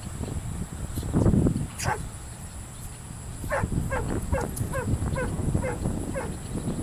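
Dog whining in a quick run of about ten short, high yelps, roughly three a second, starting about three and a half seconds in, over wind rumbling on the microphone.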